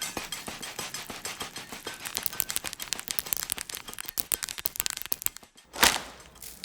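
Rice Krispies crackling and popping in milk: a dense run of tiny irregular clicks that slowly thins out. After a brief pause near the end comes one short, louder burst of noise.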